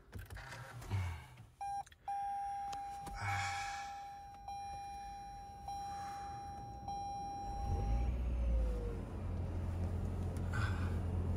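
A car's steady electronic warning beep sounds for about six seconds. About eight seconds in, the beep stops as the car's engine starts and settles into a low, steady running rumble.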